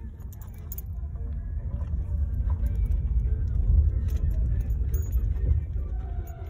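Car's road and engine rumble heard from inside the cabin, swelling over the first few seconds and easing off again, with light metallic jingling. Near the end, a tornado siren starts to wail faintly.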